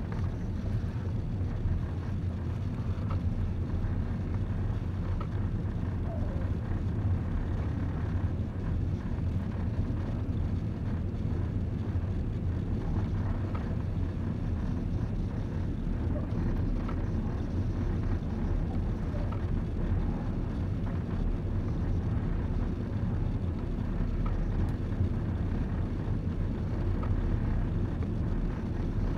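Steady low rumble of a passenger train carriage rolling slowly out of a station, heard from inside the carriage.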